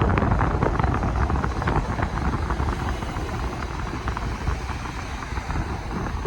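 A passing train: a heavy low rumble with a dense, rattling clatter of wheels on the track.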